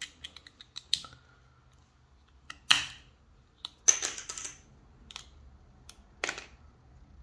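Small plastic clicks and snaps as a plastic opening pick pries apart the glued plastic case of a Samsung Galaxy SmartTag2, with a handful of sharp cracks and a brief clatter about four seconds in.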